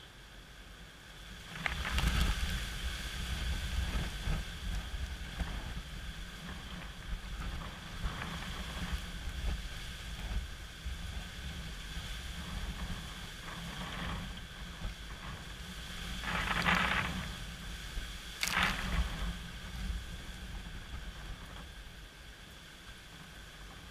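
Strong gusting wind and rain from an approaching hurricane, the wind buffeting the microphone with a low rumble. The gusts build about two seconds in, and two of the strongest come close together late on.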